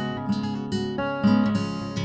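Background music: strummed acoustic guitar, with notes struck every half second or so.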